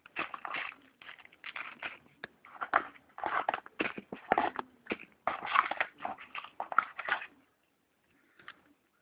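Plastic and cardboard packaging crinkling and rustling in a rapid, irregular run of crackles as a solar portable charger is unboxed. The crinkling stops about seven seconds in, with one last faint rustle near the end.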